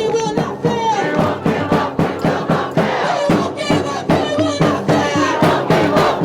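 Crowd of protesters chanting loudly in unison, many voices together, over a steady rhythmic beat.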